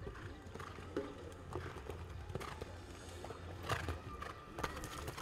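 Hoofbeats of a show jumper cantering on a sand arena, with louder thuds near the end as the horse jumps a fence.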